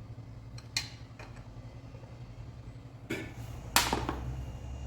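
Sharp metallic clicks from a torque wrench and socket tightening the cylinder bolts of a Honda Titan 2000 pushrod engine, three in all, the loudest a little before the end, over a steady low hum.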